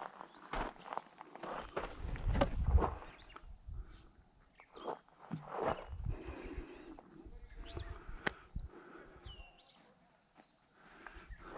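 Insects chirping in a steady high pulsing rhythm, about three pulses a second, with scattered footsteps and knocks underneath.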